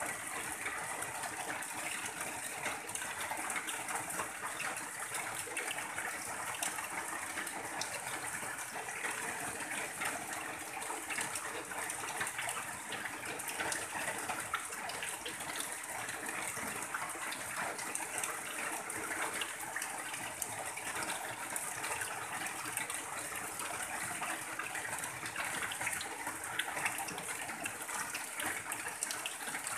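Steady rain on a tin roof, with runoff pouring off the roof edge in a continuous gushing stream.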